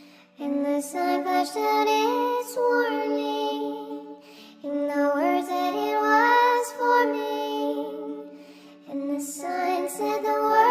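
Nightcore track: a sped-up, pitched-up song with a high vocal singing three drawn-out phrases over sustained accompaniment. The music dips briefly between phrases, about four seconds in and again near eight and a half seconds.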